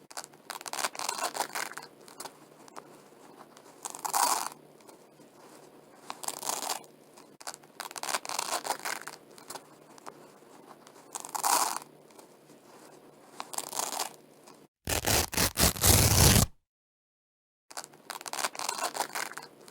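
Velcro hook-and-loop strips being pulled apart over and over, each a short ripping tear about a second long, every couple of seconds. About fifteen seconds in comes a louder, harsher rip, cut off by a second of dead silence before the tearing starts again.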